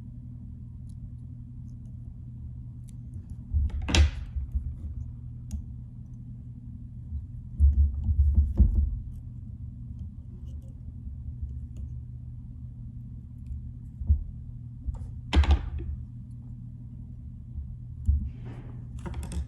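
Handling noise from finishing a fly at a tying vise: a few short sharp clicks and ticks and some low knocks over a steady low hum. One click comes about four seconds in, soft thuds come in the middle, and more clicks come near the end.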